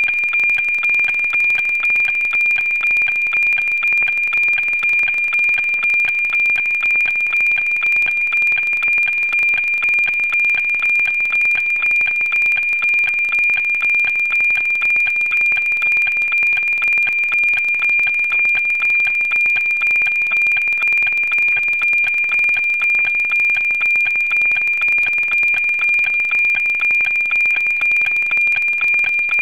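NOAA 19 weather satellite's APT image signal, received by FM radio on 137.1 MHz: a steady high tone with a rhythmic tick-tock of about two beats a second, the image lines being transmitted, over light static.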